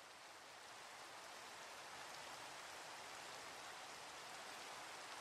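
Steady rainfall, an even hiss of rain fading in from faint over the first couple of seconds and then holding steady.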